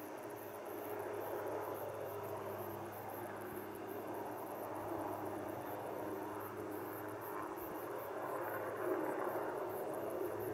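Distant helicopter giving a steady low drone, with insects chirping in a fast, even rhythm over it.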